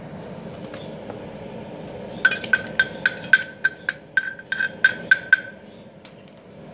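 Chipping hammer knocking slag off a fresh stick-weld bead on a steel block: about a dozen quick, ringing metal-on-metal taps over some three seconds, starting about two seconds in.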